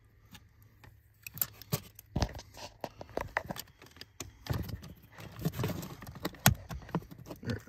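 Plastic clicking and rattling as a VW Tiguan's OBD port and remote-start harness connectors are handled and pushed back into their mount under the dash. There is a run of irregular clicks and knocks, the sharpest one near the end.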